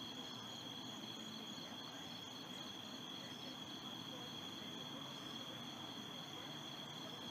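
Insects trilling: a steady high-pitched chorus, like crickets, holding unchanged throughout.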